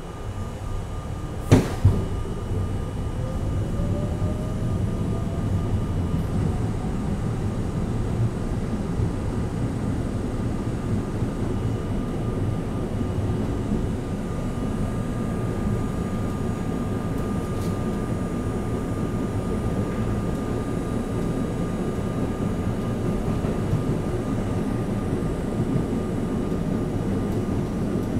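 R32 subway train pulling away: a couple of sharp knocks about a second and a half in, then a rising motor whine as the train gathers speed. After that comes the steady rumble and rattle of the car running on the rails, heard from inside the car.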